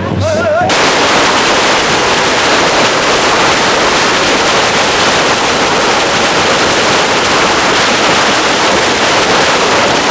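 A long run of firecrackers going off in rapid, continuous crackling bangs. It starts suddenly about a second in, cutting across a brief moment of music.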